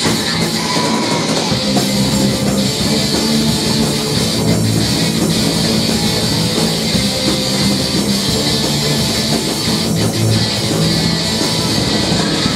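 Rock band playing live, loud and steady, with electric guitar and drum kit in an instrumental stretch without singing.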